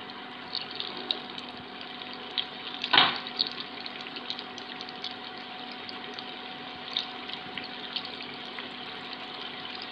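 Poha vadas, just dropped in, deep-frying in hot oil: a steady sizzle with scattered small pops and crackles, and one louder crackle about three seconds in.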